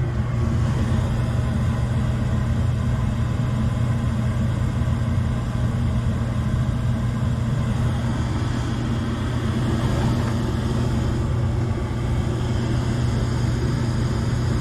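Gas furnace running with its burners lit and the draft inducer motor running: a steady, even hum. The blower motor has not yet started.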